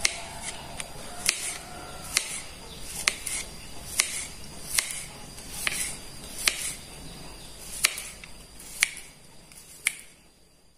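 Kitchen knife slicing a garlic clove on a plastic cutting board: a sharp tap of the blade on the board about once a second, a dozen or so in all.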